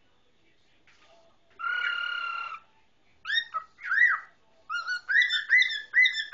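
Male cockatiel whistling: one held note, then two rising-and-falling chirps, then a quick run of short repeated chirps at about three a second.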